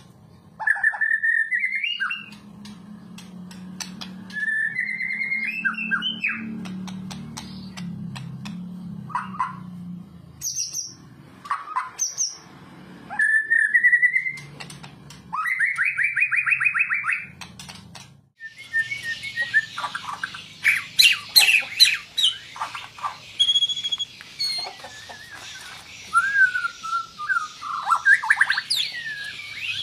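Caged white-rumped shama (murai batu) singing: loud, varied phrases of rising whistles and rapid trills. About two-thirds through, the song becomes a denser, harsher run of chattering notes.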